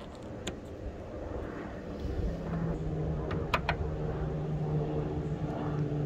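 A few sharp plastic-on-metal clicks about three and a half seconds in as a 3D-printed cable clip is pressed into the aluminium L-track. Under them, the steady hum of a motor vehicle's engine comes in about two seconds in and grows louder.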